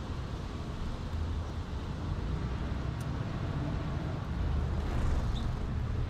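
Steady low outdoor rumble of background noise, with a faint short high note about five seconds in.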